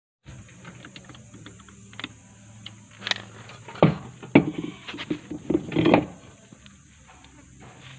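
Hand tools and metal parts clinking and knocking, with a cluster of louder knocks about four to six seconds in, over a faint steady hum.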